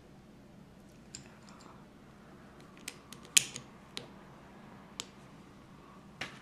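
Small plastic Lego pieces clicking against each other as they are handled and pressed together, a scattering of short clicks with the loudest about three and a half seconds in.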